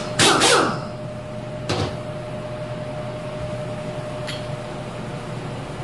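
Hydraulic cylinder parts being handled: a loud metallic clatter with a short scrape sliding down in pitch, another knock a moment later and a light tick near the end, over a steady low shop hum.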